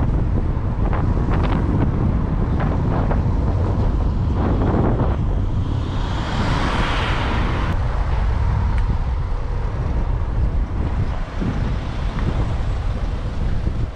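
Car driving along a road: steady low road rumble with wind buffeting the microphone, and a louder whoosh that swells and fades about halfway through.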